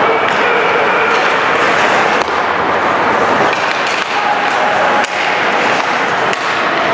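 Ice hockey play in a rink: a steady rush of noise broken by about five sharp clacks of sticks and puck.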